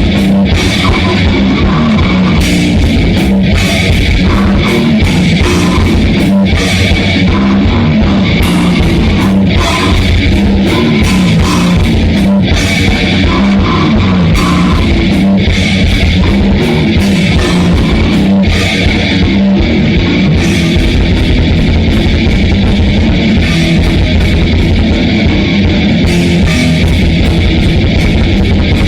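Grindcore/death metal band playing at full volume, heard as a raw rehearsal recording: distorted electric guitar and a drum kit, with dense, steady sound and frequent sharp drum and cymbal hits and no breaks.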